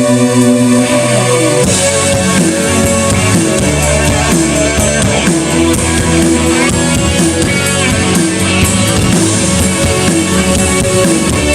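Live rock band playing through a PA during a sound check: electric guitar and drum kit, loud and continuous. About two seconds in, the held guitar chord gives way to a busier groove with drums.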